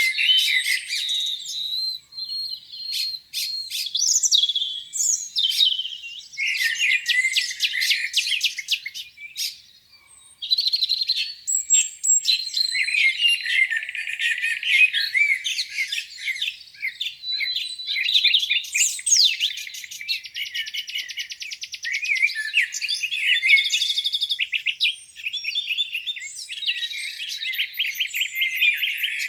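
Several songbirds singing at once: overlapping chirps, whistles and trills, with a rapid buzzy trill about twenty seconds in and a short lull near ten seconds.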